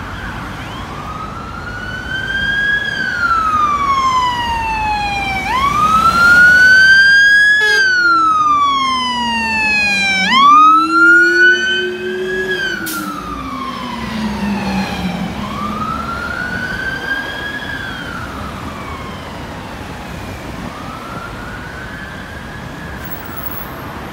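Fire engine's electronic siren on a slow wail, rising and falling about every five seconds, loud as the truck passes close and fading as it drives away. For several seconds during the pass, a low-pitched Rumbler siren follows the same wail underneath.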